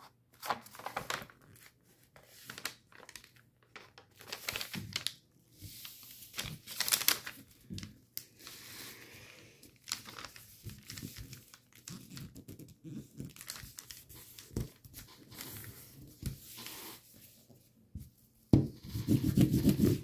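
A sheet of thin paper being folded and creased along its diagonals: irregular rustling and crinkling, with sharp rubbing strokes as each crease is pressed flat.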